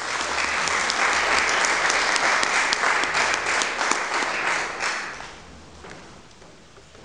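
Audience applauding, dying away about five seconds in to a few scattered claps.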